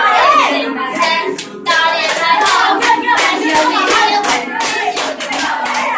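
A group of young people singing along together, with hand clapping breaking in suddenly nearly two seconds in and continuing in quick claps over the singing.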